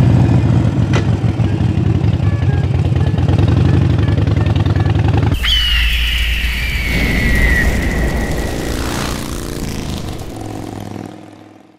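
2012 Harley-Davidson Sportster 1200's air-cooled V-twin with Vance & Hines pipes, idling loud with a fast, even lumpy beat. About five seconds in it cuts off and an outro sound effect takes over: a deep rumble with a high screech falling in pitch, fading out near the end.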